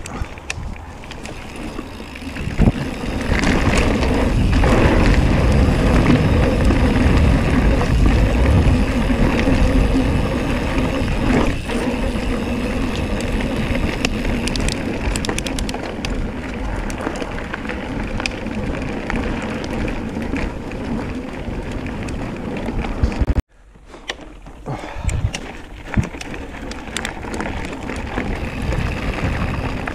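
Mountain bike ridden fast along a dirt forest trail: a loud, steady rumble of tyres on the ground, with clicks and knocks from the bike over rough ground. The sound cuts off suddenly about two-thirds of the way through, then picks up again as the bike rolls on a gravel track.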